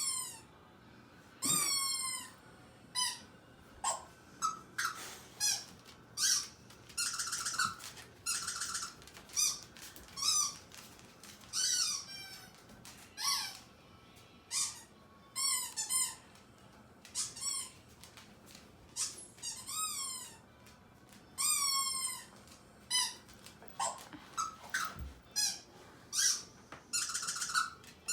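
Repeated high-pitched squeaks, most sliding down in pitch, coming every second or so, with a few quick runs of rapid squeaks.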